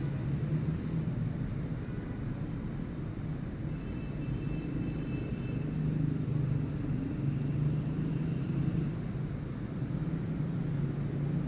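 A steady low hum, with a few faint short high-pitched tones about a third of the way in.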